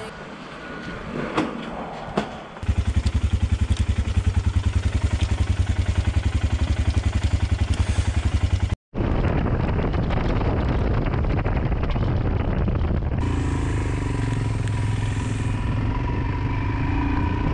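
Royal Enfield Himalayan's single-cylinder engine idling with a fast, even thud, starting about two and a half seconds in after a few light clatters of handling gear. After a sudden cut the motorcycle is running at road speed, its engine steady under wind and road noise that grows hissier toward the end.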